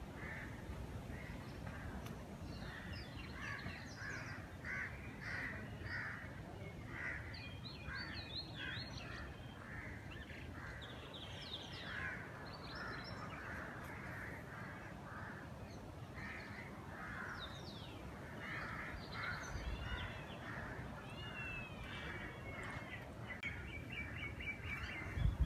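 Crows cawing over and over, with the higher, thinner chirps of smaller birds among them, over a steady low background hiss.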